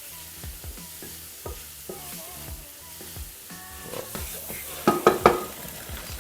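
Potatoes and onion frying in butter in a pan, a steady sizzle with stirring, and a few sharp knocks about five seconds in.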